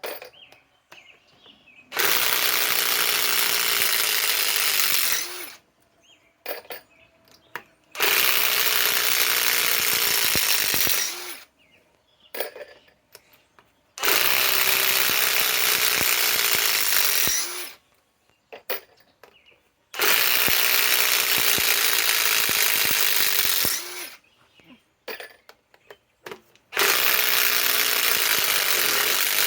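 Ridgid half-inch subcompact impact wrench hammering, five runs of about three seconds each with short pauses and small clicks between them, as it backs out 4-inch timber lock screws one after another.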